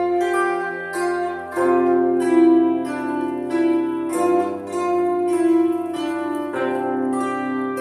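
Instrumental introduction of a song's backing track: sustained chords with plucked-sounding notes, the harmony changing every two seconds or so, with no voice yet.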